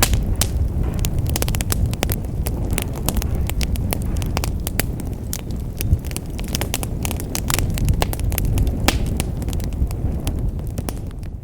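Wood fire in a fireplace crackling and popping: a dense run of sharp snaps over a steady low rumble of the flames. The sound fades down near the end.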